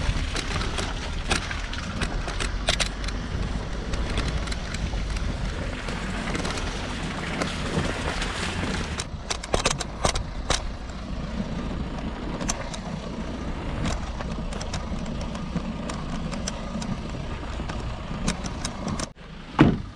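A vehicle driving over a rough, unpaved off-road track: a steady engine and road rumble with scattered knocks and rattles from stones and bumps.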